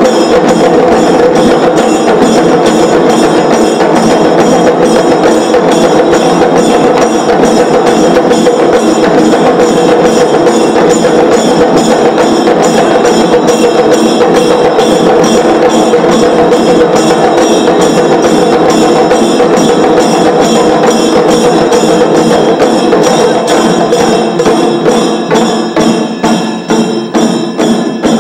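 Chenda melam: a large ensemble of Kerala chenda drums beaten with sticks, with ilathalam hand cymbals, playing a loud, dense continuous roll. Near the end the roll opens out into separate strokes, about two a second.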